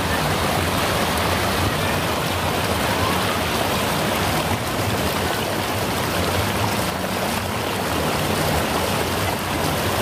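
Waterfall pouring down, a steady, very loud rush of water.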